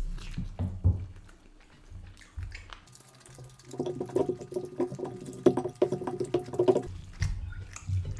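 Close-miked eating sounds: wet squelches and smacks of fingers mixing and scooping rice with curry on a plate, and chewing. For about three seconds in the middle a muffled pitched sound pulses several times a second.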